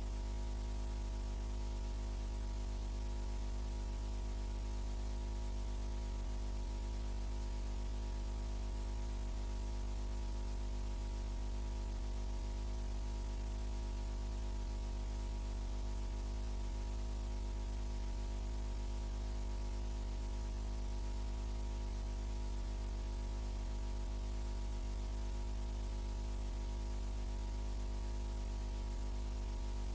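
Steady electrical hum with a row of unchanging overtones, under a constant hiss; nothing else happens.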